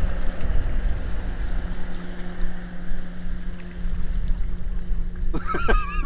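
A motorboat engine hums steadily across the water over wind buffeting the microphone. Near the end a high, wavering cry rises over it.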